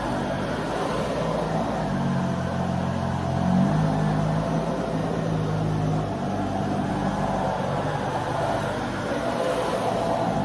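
Dyson Ball Multifloor 2 upright vacuum cleaner running while vacuuming, a steady whir with a low hum underneath that shifts in pitch a few times.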